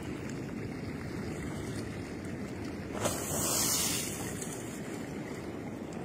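Ocean surf washing in over rocks and sand, with wind on the microphone. A louder hiss of rushing water starts suddenly about three seconds in and lasts about a second.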